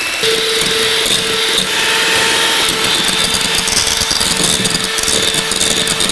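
Electric hand mixer switched on just after the start and then running steadily with a constant motor whine, its beaters whipping egg whites in a plastic bowl toward stiff peaks.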